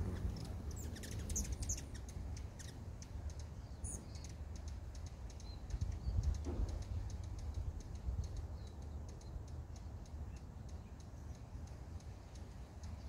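Hummingbirds at the feeders giving sharp, high chip notes, many in a row and thickest about a second in, with a steady low rumble underneath.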